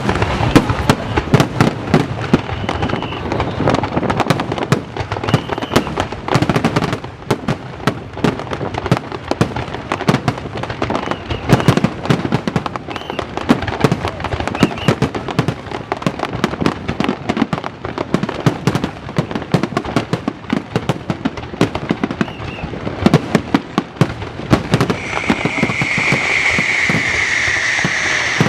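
Aerial fireworks display going off in a dense barrage: many sharp bangs and crackling bursts in quick succession. Near the end a steady high whistle rises over the bangs.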